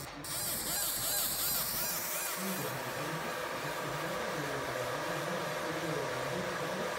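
Fiber laser marking machine running a deep-marking job: the scan head buzzes in a repeating, warbling pattern of tones over a steady hiss.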